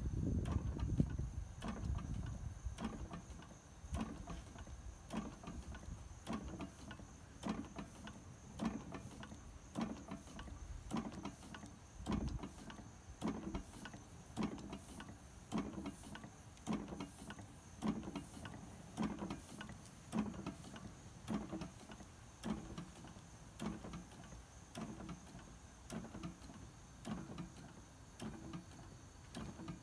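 1881–82 Rider two-cylinder hot air engine running slowly while warming up, its moving parts giving a steady rhythmic knock about once a second with lighter clicks in between. A low rumble sits under it in the first couple of seconds.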